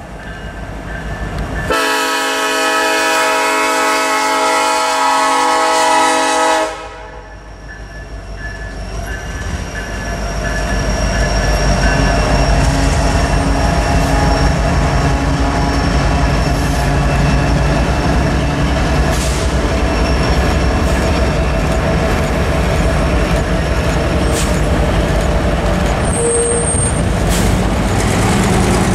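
A Norfolk Southern diesel locomotive's air horn sounds one long blast of about five seconds, starting about two seconds in. Then the light-engine consist of a GE ES44AC and an EMD SD70ACe rumbles across the crossing, its diesel engines growing louder and then holding steady.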